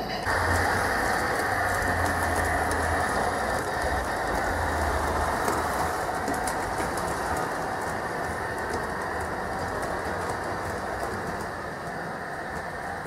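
Gauge 1 (1:32 scale) model trains rolling on the layout's track: a steady rumble of metal wheels on rail with a low motor hum. It gets louder suddenly just after the start and eases off a little near the end.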